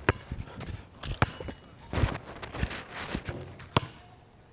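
Basketball dribbled on concrete: about six sharp bounces at an uneven half-second-or-so pace, with shoes scuffing on the court. The bounces stop near the end.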